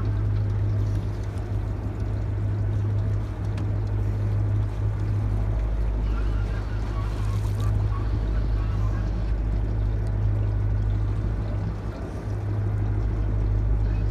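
Boat's engine running steadily, a deep, unchanging hum.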